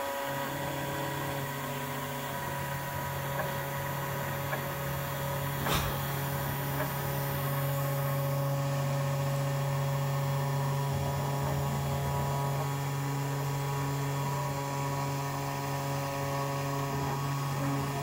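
Small CNC machine running a test on a printed circuit board: a steady multi-tone hum and whine from its motors, the tones shifting slightly now and then, with one sharp click about six seconds in.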